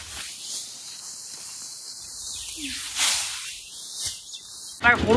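Dry rice sheaves rustling as they are carried and laid on a straw heap, over a steady high hiss, with a louder rustle about three seconds in. Just before the end the sound cuts abruptly to a running engine and a voice.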